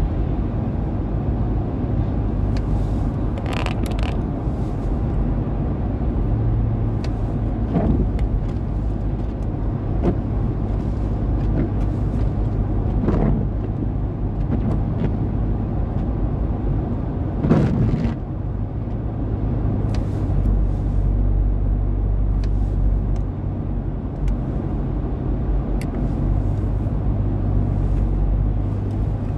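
Road noise inside a moving car's cabin: a steady low rumble of engine and tyres on a wet highway. A few brief louder swells come through it, the loudest about 17 seconds in.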